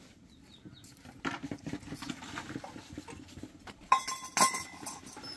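Small knocks and clinks of metal or glass, with two sharp clinks about four seconds in that ring on briefly.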